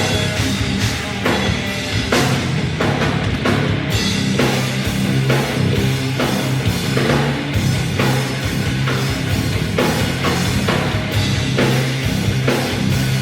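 A rock band playing live: distorted electric guitars, bass and a drum kit with a steady driving beat.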